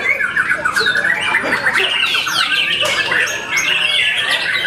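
Several white-rumped shamas (murai batu) singing at once: a dense, unbroken mix of whistles, quick trills and rising and falling notes.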